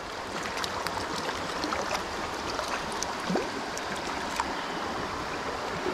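Shallow trout-stream riffle flowing steadily, an even rushing of water, with a few faint ticks scattered through it.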